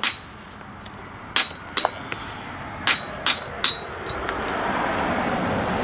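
A brick hammer striking a red clay brick in a series of sharp knocks, some with a brief metallic ring, chipping the brick down to size. In the last two seconds a rushing background noise swells.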